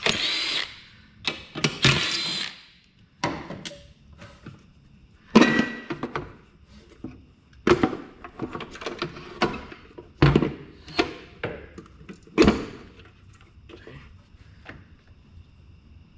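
Cordless drill-driver whirring twice in short spurts as it spins off the air cleaner's centre fastener on a Pontiac Fiero's four-cylinder engine. This is followed by a series of separate clunks and knocks as the air cleaner housing is worked loose and lifted off, and tools are handled in the engine bay.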